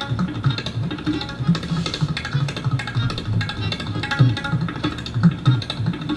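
Tabla played very fast in a rela imitating a horse's gallop: a dense, even run of sharp strokes over a throbbing low bass drum.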